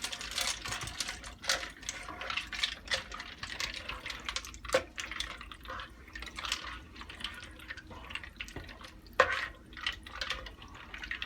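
Spoon stirring dry ziti pasta into a watery tomato and beef sauce in a cooker pot: irregular wet sloshing and scraping, with one sharper knock about nine seconds in.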